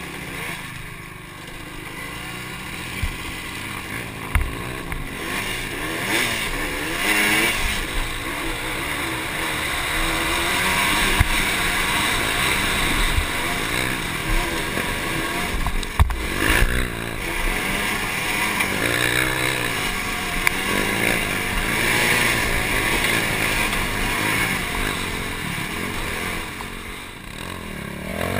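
Honda sport quad's engine revving up and down while riding, its pitch rising and falling repeatedly, with wind rushing over the helmet-mounted microphone and a few short knocks from the machine over rough ground.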